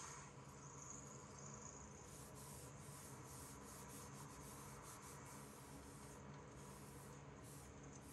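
Damp sponge being wiped back and forth over a sheet of leather to wet it: faint, quick, repeated swishing strokes, a few a second.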